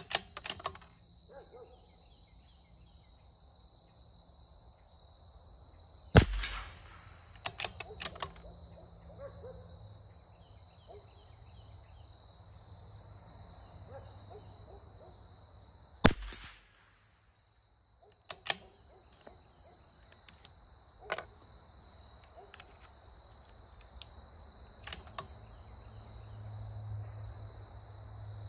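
Two shots from a .22 LR bolt-action CZ 457 Varmint rifle, about ten seconds apart. Each is followed by smaller clicks as the bolt is worked to eject the case and chamber the next round. A steady high insect drone runs underneath.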